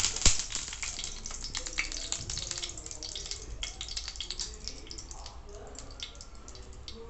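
Black mustard seeds spluttering in a little hot oil in a frying pan: a dense patter of small sharp pops that grows sparser after about five seconds, the seeds crackling as the oil gets hot. One loud knock of the spatula against the pan just after the start.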